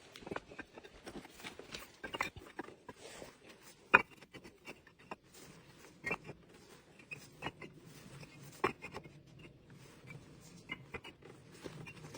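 Bricks being handled and stacked, giving irregular clinks and knocks, with the sharpest knocks about four and nine seconds in.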